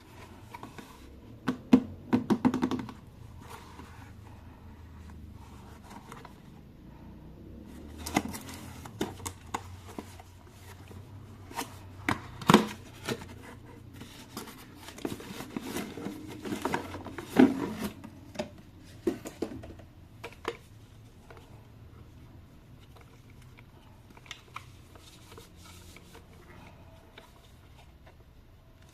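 Hands handling toy packaging and plastic parts: scattered clicks, taps and scrapes in bunches, the loudest in the first twenty seconds, then only a few faint ticks.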